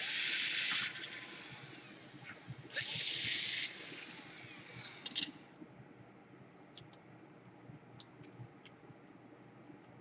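Cordless drill-driver spinning screws out of a laptop motherboard in two runs of about a second each, a high whir. After them come a sharp click about five seconds in and a few faint clicks.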